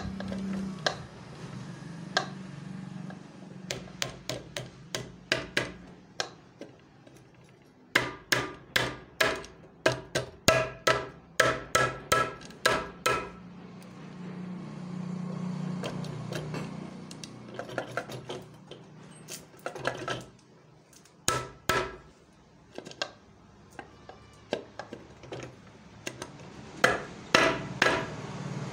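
Aluminium side cover of a Hero HF Deluxe engine being knocked down onto the crankcase to seat it over its gasket: runs of sharp strikes, about two to three a second, coming in several bursts with pauses between.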